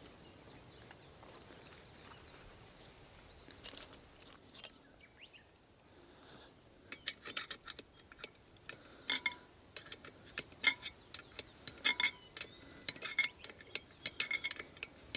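Metal hand tools clinking against each other as they are handled and set down. A couple of light clicks come first, then a run of sharp, ringing clinks over the second half.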